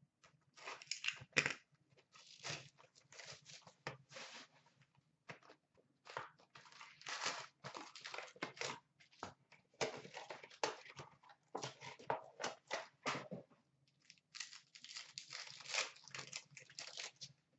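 Hockey card packs being torn open by hand, their wrappers crinkling and tearing in a string of irregular rustles.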